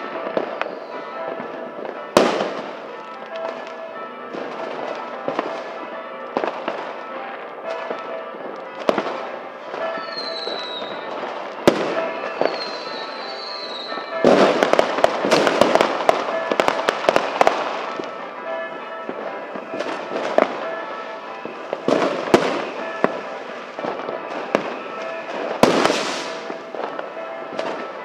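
New Year fireworks and firecrackers going off: scattered single bangs, each trailing off, with short high whistles about ten to fourteen seconds in and a dense crackling barrage of firecrackers from about fourteen to eighteen seconds.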